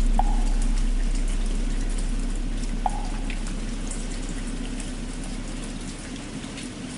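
Steady rain with scattered drips, over the low hum of a struck temple bell that fades away evenly. Two short hollow knocks of a wooden fish (muyu) sound about a quarter-second and three seconds in.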